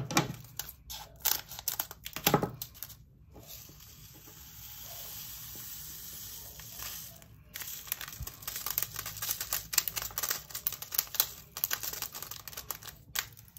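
A small plastic bag of round diamond-painting drills crinkling, with quick rattling clicks of the drills being poured into a small plastic storage container. The activity goes quiet for a few seconds in the middle, then picks up again.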